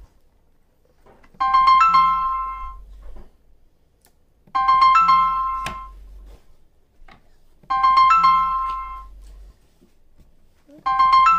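A short electronic piano-like jingle repeating about every three seconds: the same bright chord phrase struck four times, each fading out before the next.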